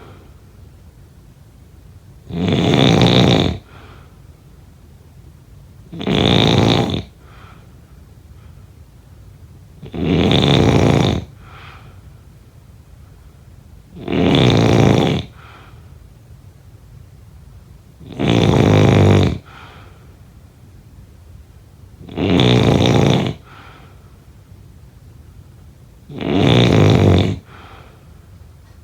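A person snoring in a slow, regular rhythm: seven snores about four seconds apart, each lasting about a second, with a faint softer sound just after each one.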